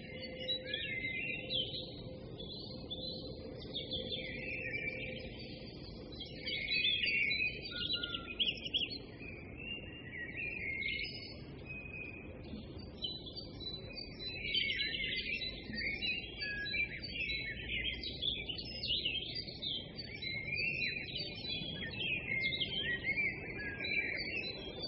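Small birds chirping and twittering without pause: many quick, high chirps and short warbling glides, one after another, over a faint low background noise.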